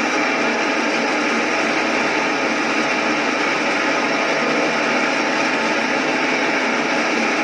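Fish-cutting machine running steadily as it cuts skipjack tuna, a continuous even mechanical noise.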